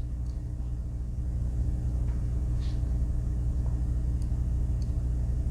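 A steady low hum, with a few faint light ticks about two and a half seconds in and again near the end.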